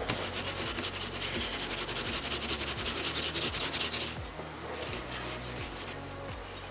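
Rapid scrubbing strokes on a grimy BMX crank arm being cleaned, strongest for the first four seconds, then a lighter spell of scrubbing.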